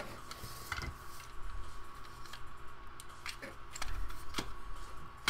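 Light clicks and taps of hard plastic toy parts being handled and set down on a table: a G.I. Joe snow vehicle and a small piece fitted to it, with several scattered knocks.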